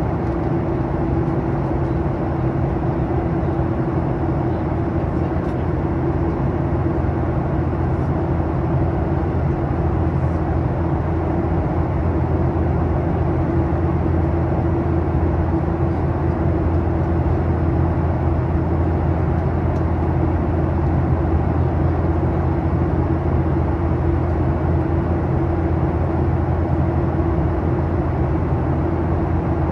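Cabin noise of a Boeing 737-800 in flight: a steady drone from its CFM56-7B turbofan engines and the airflow, with a constant low hum.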